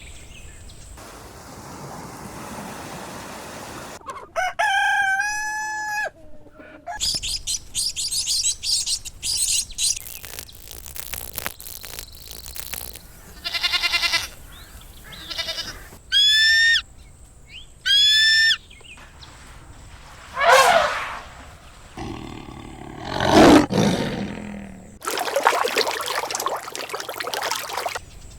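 A string of short chicken recordings cut one after another: rooster crows and hens clucking, ending in a loud rough noisy stretch.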